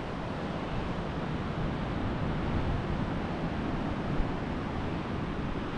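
Steady wind with the wash of surf on a beach, the wind rumbling on the microphone.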